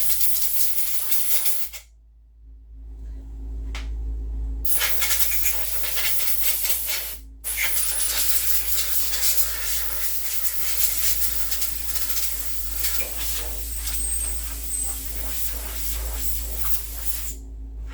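Compressed air hissing from a blow nozzle, blowing sanding dust off woodworking tools in three long blasts: the first about two seconds, a short one in the middle, and a long one lasting about ten seconds. A low steady hum runs underneath.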